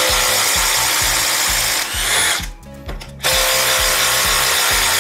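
Bosch GDX 18V-200 cordless impact driver running in reverse, backing a 10 cm wood screw out of a wooden beam. It stops briefly about two and a half seconds in, then starts again.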